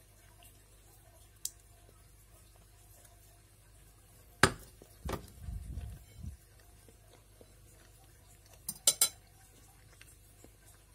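Metal fork clinking and knocking against a ceramic plate: a sharp clink about four and a half seconds in, another knock with a short low rumble just after, and a quick run of three clinks near the end.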